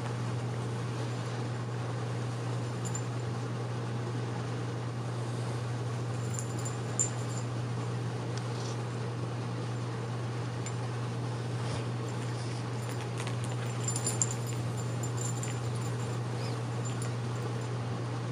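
Steady low hum and hiss of room noise, with faint scuffling and a few small sharp clicks as two kittens wrestle on a person's jeans-covered lap.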